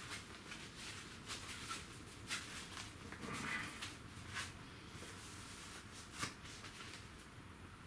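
Faint handling sounds: soft rustling and a few light taps as a cloth baseball cap is taken off and a mesh trucker cap is put on.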